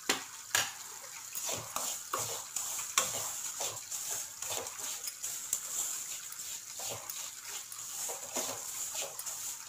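Wooden spoon stirring and scraping semolina being dry-roasted in an aluminium kadai: repeated scrapes and light knocks against the pan over a steady hiss.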